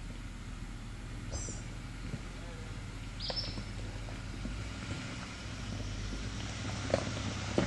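Jeep Wrangler JKU engine idling with a steady low drone as it crawls over the rocks. A bird chirps twice in the first half, and there are two sharp knocks near the end.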